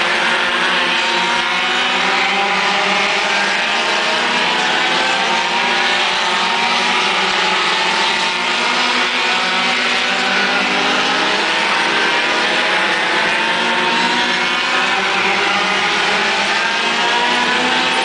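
Several Ford Focus midget race cars' four-cylinder engines running hard on track, a continuous loud blend of engines at high revs. Their pitches keep rising and falling as the cars accelerate, lift and pass.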